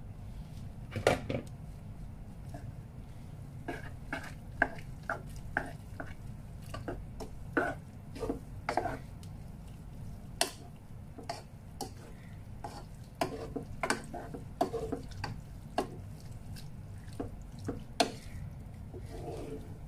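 A wooden spoon stirring spaghetti through a thick sauce in a metal pot: irregular knocks and scrapes against the pot's sides and bottom, over a steady low hum.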